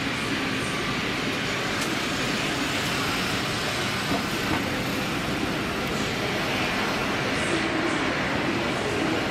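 Jet engines of an Airbus A330-300 (Rolls-Royce Trent 700 turbofans) running at takeoff thrust on the takeoff roll: a steady, unbroken rush of engine noise.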